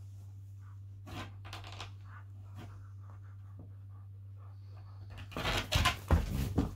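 Two rough collies, an adult and a puppy, wrestling and mouthing each other on a rug: faint scuffling and scratching, then a louder rough scuffle for about a second and a half near the end.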